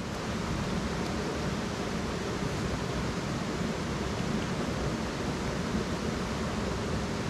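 Steady rushing noise of a river's running water, even throughout with no distinct splashes or knocks.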